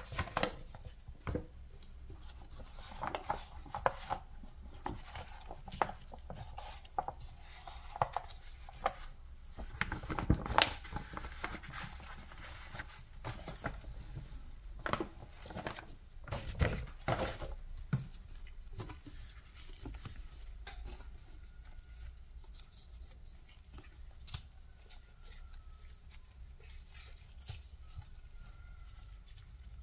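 Kitchen handling sounds: irregular knocks, taps and paper rustling as a rolled sheet of pastry dough on baking paper is lifted and pressed into a stainless steel ring on a wooden board. The handling is busiest in the first two-thirds and quieter near the end.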